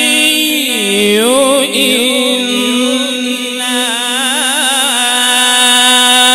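Male qari reciting the Quran in melodic tajweed style: one long unbroken held note that dips in pitch about a second in, then wavers through ornamented turns before holding steady near the end.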